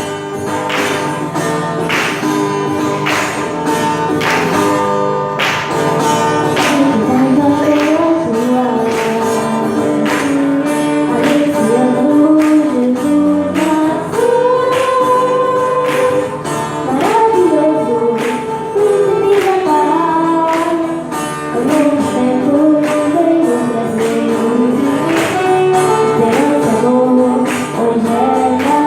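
A song with a voice singing over instrumental accompaniment and a regular percussion beat. The beat is clearest in the first few seconds, and the sung melody comes in about seven seconds in.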